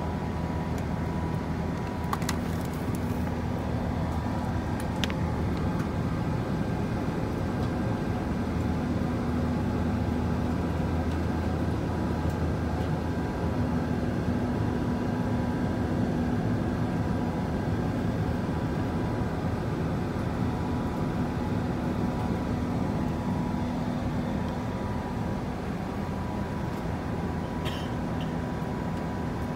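Steady airliner cabin noise inside an Airbus A380-800 in flight: a low engine drone and airflow rush with a faint steady whine, and a few faint clicks.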